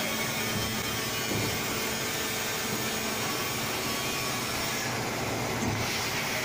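Automatic molding machine running with a steady whirring hiss and a low hum, with a couple of faint knocks as it moves.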